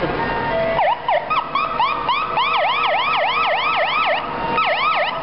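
Fire truck's electronic siren yelping, a rapid up-and-down sweep about three times a second that starts about a second in and breaks off briefly near the end.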